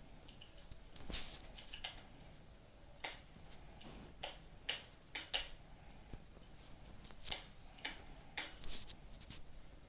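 Wood fire crackling in a fireplace: about a dozen irregular sharp pops and snaps over a faint steady background.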